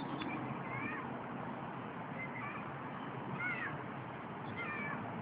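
An animal's short, arching calls, about four of them roughly a second apart, over a steady background hiss.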